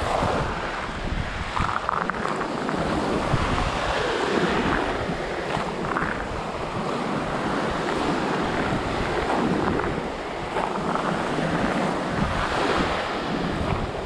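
Small waves breaking and washing up the shore in surges every few seconds, with wind rumbling on the microphone.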